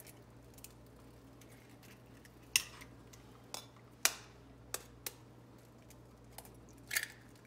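A metal spoon tapping the shell of a raw egg to crack it: about half a dozen sharp taps, unevenly spaced.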